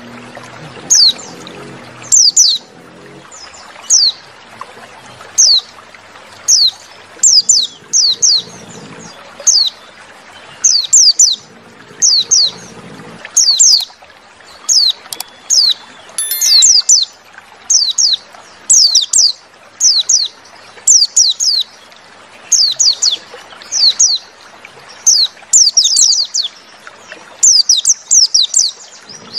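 White-eye (pleci) calls: short, high, downward-sliding chirps, singly or in quick runs of two or three, repeated about every second. It is a lure recording meant to set caged white-eyes singing.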